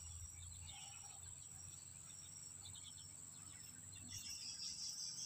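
Faint outdoor ambience of insects chirping, with a thin, steady high-pitched buzz underneath; the chirping grows a little louder about four seconds in.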